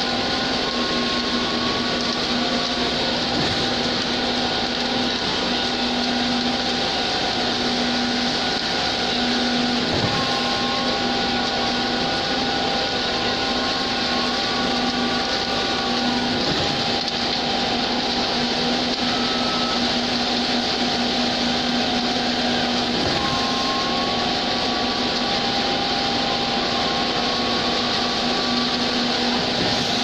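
A concrete mixer truck and a concrete pump running together while the truck's drum unloads concrete into the pump's hopper: a steady mechanical drone with a held low hum. Faint whining tones rise slightly in pitch now and then.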